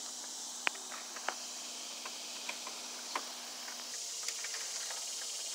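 Steady high hiss with a few faint sharp clicks scattered through it.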